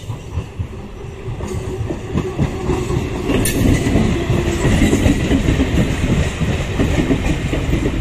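Electric multiple-unit (EMU) local train passing close by, its wheels running over the rails with a rumble and clatter of knocks. It grows louder over the first few seconds as the train draws near, then holds steady as the coaches go by.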